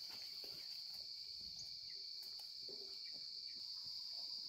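Steady, high-pitched drone of an insect chorus, unbroken throughout, with faint scattered soft sounds beneath it.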